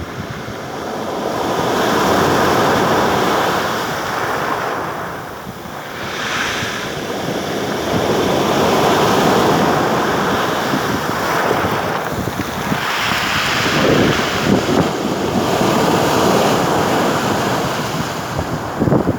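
Black Sea waves breaking and washing on the shore, the surf swelling and ebbing every several seconds. Wind buffets the microphone with low rumbles.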